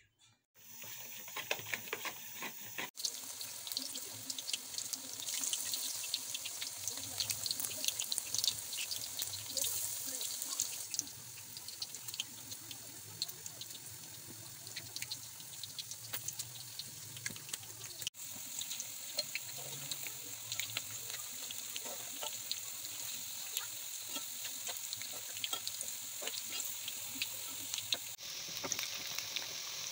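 Hot oil sizzling with a steady hiss and many scattered crackles as battered cauliflower florets deep-fry; the sound breaks off and resumes abruptly a few times.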